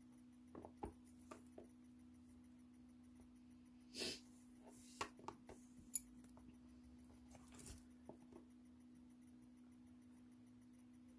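Faint scattered clicks and short rustles of leather lace being handled and pulled through a handbag's braided leather lacing with a lacing needle, over a steady low hum.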